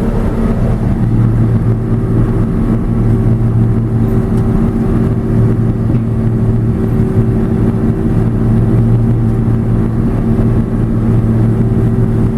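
John Deere 6620 combine's diesel engine and harvesting machinery running steadily under load while combining corn, a constant loud drone with a steady low hum, heard from the operator's seat.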